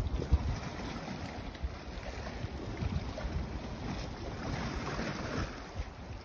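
Wind buffeting the microphone in uneven gusts, over the wash of the sea.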